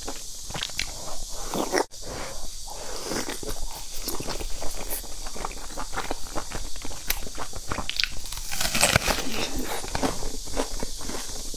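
A person chewing steamed dumplings close to the microphone: a steady run of wet mouth clicks and smacks.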